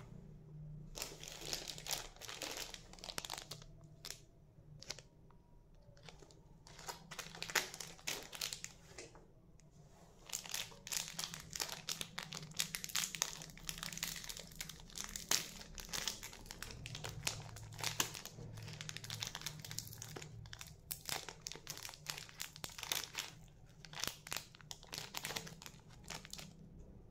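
Plastic candy wrapper crinkling and crackling in the hands, in irregular bursts with a few short pauses, as the packet is torn open.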